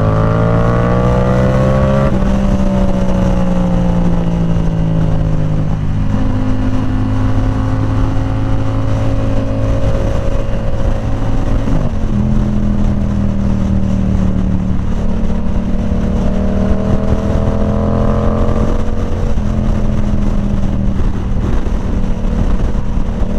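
Yamaha R7's parallel-twin engine through a Yoshimura AT2 full exhaust system, ridden under way. Its pitch climbs and steps down at gear changes, first about two seconds in, again around the middle, and after a final rising pull near the end.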